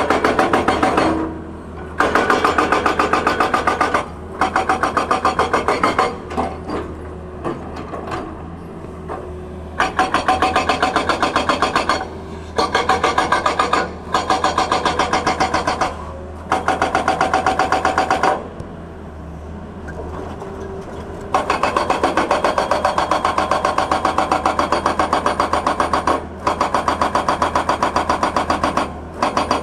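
Hydraulic rock breaker on a Tata Hitachi excavator hammering rock in bursts of a few seconds of rapid, even blows, over the excavator's diesel engine running. Between bursts there are short pauses, with two longer lulls of a few seconds, about six seconds in and again past the middle, where only the engine is heard.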